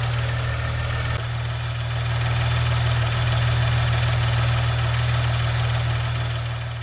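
Maserati Ghibli SQ4's twin-turbo V6 idling steadily, with a fast ticking from the high-pressure fuel pump, a tick that a certified Maserati technician calls perfectly normal.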